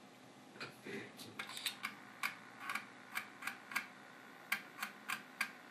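Amiga 1200's floppy drive ticking as its head steps while booting a disk, a run of sharp, dry clicks about two to three a second.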